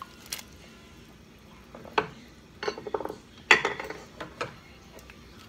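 Kitchenware knocking and clinking: a bowl knocked against the rim of a cooking pot as cut onion is tipped into the boiling water, then things handled on the counter. A few separate knocks, the loudest about three and a half seconds in.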